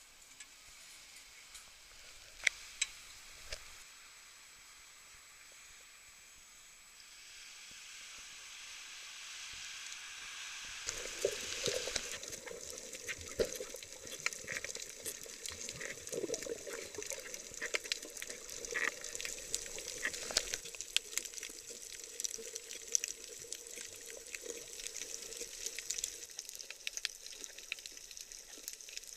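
Underwater sound from a snorkeller's camera: a dense crackling hiss of water full of small clicks, building up about a third of the way in. Before it there is a quieter stretch with a couple of sharp clicks.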